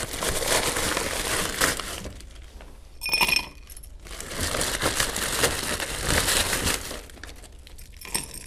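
Ice cubes being handled and dropped into an old-fashioned glass: rustling and rattling, with one ringing glass clink about three seconds in.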